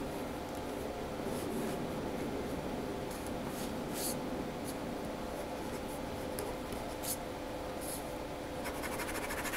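Pen scratching on paper in short, irregular strokes, over a faint steady hum.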